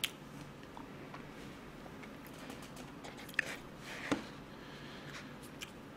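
Quiet room tone with a few soft clicks and a brief crinkle of plastic wrapping about three to four seconds in, as a hand reaches into a bag of cream croissants.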